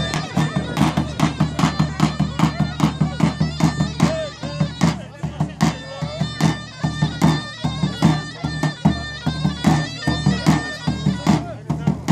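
Traditional folk dance music: a shrill, bagpipe-like reed pipe playing a continuous melody over a fast, steady drum beat.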